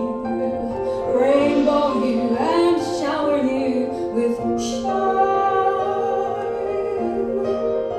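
Recorded music with a woman singing long, wavering notes over instruments, played back over loudspeakers in a room.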